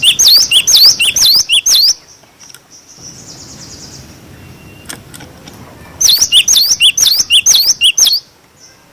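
Cinereous tit (glatik batu) singing its 'wucit' song: two loud bursts of about six quick rising-and-falling whistled notes each, about four seconds apart.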